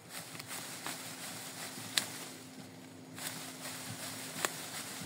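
Faint rustling of leaves and stems with sharp snaps, one about two seconds in and one near the end, as cassava plants are worked loose and pulled from the ground by hand.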